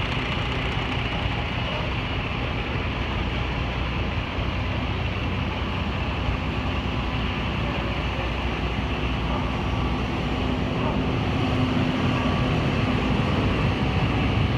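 Diesel engines of parked fire trucks running steadily, a low even drone that grows a little louder near the end.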